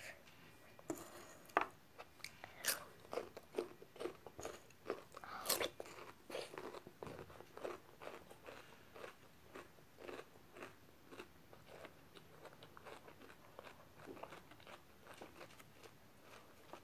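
A person chewing and crunching food close to the microphone: irregular crisp crunches and chewing sounds, fairly quiet, with a few sharper crunches a few seconds in.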